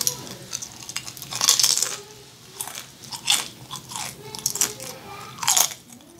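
A person biting and chewing crunchy food close to the microphone, in irregular crunches; the loudest come about a second and a half in, around three seconds in, and near the end.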